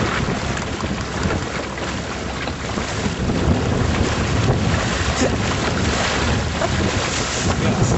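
Wind buffeting the microphone, over water splashing along the hull of a canoe under sail. Louder from about three seconds in.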